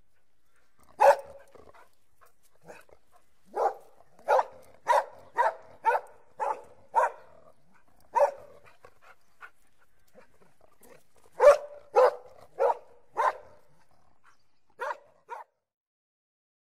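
Dog barking angrily in short volleys of sharp barks, about two a second, with pauses between the runs. The last two barks are quieter.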